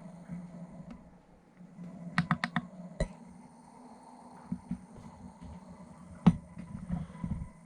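Feiyu G6 gimbal's motors humming steadily, with sharp clicks over it: four quick clicks about two seconds in, single clicks at about three and six seconds (the later one the loudest), and a few lighter taps near the end.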